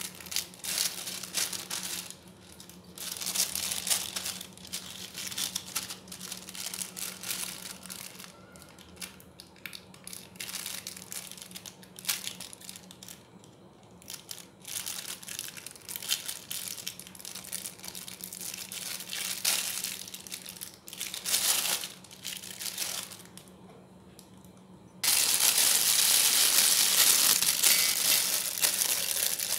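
Disposable plastic piping bag crinkling and rustling as it is handled, in irregular bursts. About 25 seconds in it turns louder and continuous as the bag is opened out over a drinking glass.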